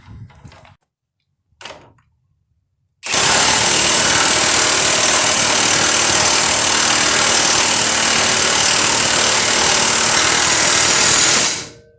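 Impact wrench running one long continuous burst of nearly nine seconds, starting about three seconds in and stopping near the end, driving a nut on.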